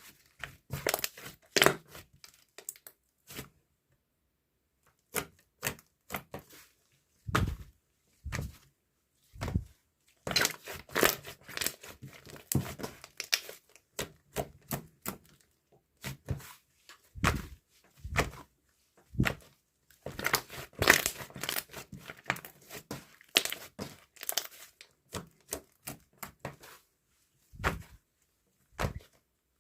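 Irregular close-up crinkling, tapping and tearing-like handling noises, coming in clusters of sharp clicks with silent gaps between.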